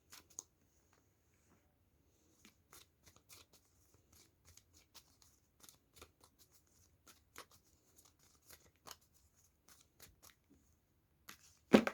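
Tarot deck being shuffled by hand: a run of faint, quick, irregular card flicks and riffles, with one sharper card snap near the end.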